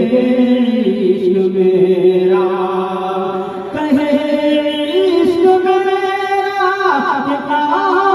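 A man singing an Urdu devotional poem (kalam) solo into a microphone, in long held notes that glide and bend between pitches.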